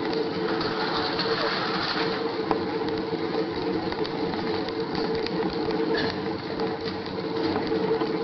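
Bicycle in motion on a paved street: a steady mechanical whirr from the bike with scattered light clicks and rattles, over a wash of street noise.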